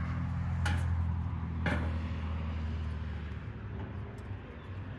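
Two sharp metal clanks about a second apart as raku tongs knock against the steel drum, over a low engine-like hum that stops a little past halfway.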